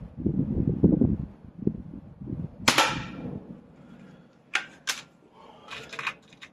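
A Weihrauch HW99S .177 spring-piston air rifle firing once, a sharp crack about two and a half seconds in, after low rumbling noise at the start. Two sharp clicks and a short rasp follow near the end.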